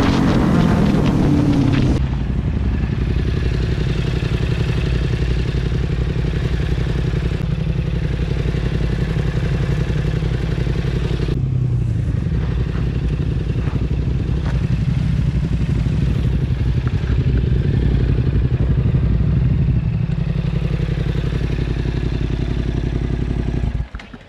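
Quad bike (ATV) engine revving for about the first two seconds, then idling steadily until it drops away just before the end.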